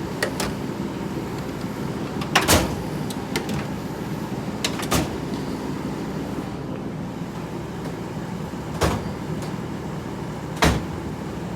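1960s Westinghouse window air conditioner running steadily, its compressor on and fan blowing cold air. Scattered sharp knocks and clatters sound over the hum, about half a dozen in all.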